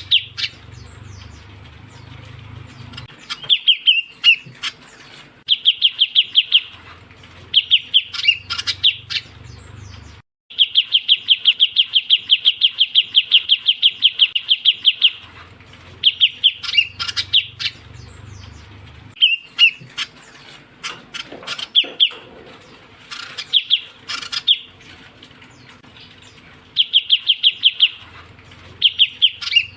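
Ciu kunyit (shrike-babbler) calls played as a bird lure: repeated bouts of rapid, high chattering trills, each a second or two long, with one long trill of about five seconds starting about ten seconds in.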